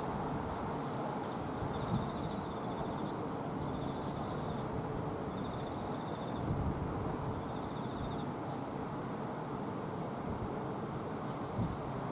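Insects chirping in the evening: a steady high-pitched insect hum, with short trilled chirps repeating every second or two.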